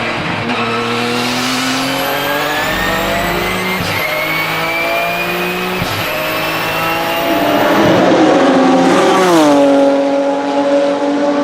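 Twin-turbo 3.9-litre flat-six of a Porsche 997 GT2 RSR accelerating hard, with sequential-gearbox upshifts about 4 and 6 seconds in. A high turbo whistle rises with the revs and dips at each shift. Near the end the engine gets louder and rougher, then its pitch falls steeply and stays lower as the car slows.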